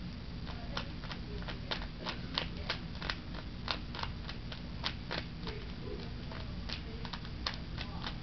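Rubik's Cube being turned by hand during a solve: quick, irregular plastic clicks of the layers snapping round, about three a second, over a steady low hum.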